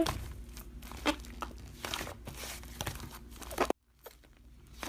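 Slime being squished and played with by hand, giving small crackling clicks and pops. The sound cuts out suddenly for a moment about three-quarters of the way through.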